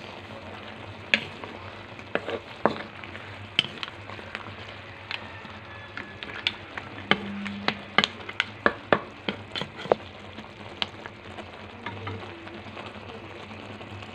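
Balay shells being stirred with a wooden spatula in a metal wok: irregular clicking and knocking of shells and spatula against the pan over a steady sizzle of the simmering sauce. The knocks come thickest in the middle and thin out near the end.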